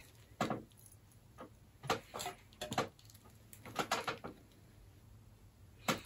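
Handling noises as small items are picked up: a scatter of light knocks and rustles, a few at a time, with short quiet gaps between them.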